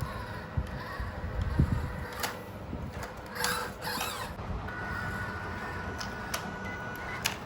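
Small electric motor and gears of a radio-controlled truck whining, with scattered clicks and knocks. A steady high whine sets in about halfway through.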